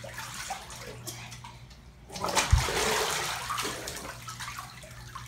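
Water churning in a jetted bathtub over a steady low pump hum. About two seconds in comes a louder splash and slosh with a thump as the child moves in the water.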